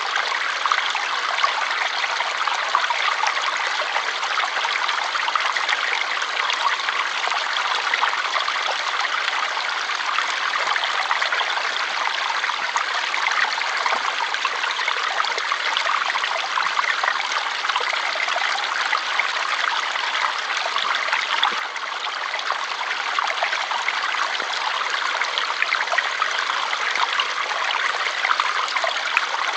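Water flowing continuously, a steady, even splashing wash with its weight in the middle and upper range and little low rumble.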